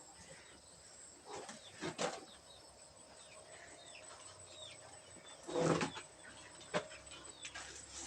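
Birds chirping, with a few short sharp knocks and one brief, lower animal call about five and a half seconds in.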